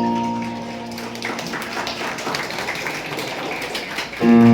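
Background music with sustained keyboard tones fades out. For about three seconds there is a stretch of light, quick tapping and rustling clicks, and then the music comes back in near the end.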